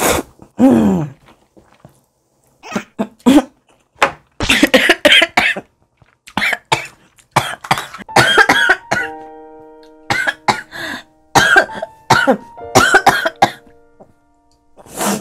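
A woman coughing in repeated short, loud fits, choking after gulping spicy glass noodles too hastily.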